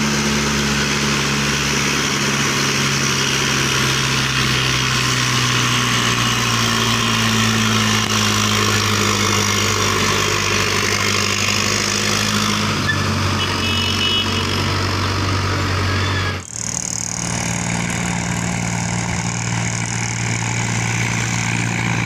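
Diesel farm tractor engines running steadily under load as they haul sugarcane-laden trailers uphill, a continuous drone with a low hum. About 16 seconds in the sound breaks off abruptly, then a similar engine drone continues.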